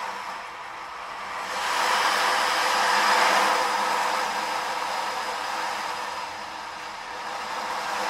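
Hand percussion instrument imitating sea waves: a rushing hiss that swells to a peak about three seconds in, dies away, and starts to swell again near the end, like a wave washing in and drawing back.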